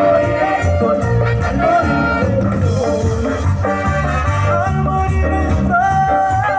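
Latin band and orchestra playing live in a sound check: held melody lines over a steady bass and percussion rhythm, with a shaker, in an instrumental stretch between sung lines.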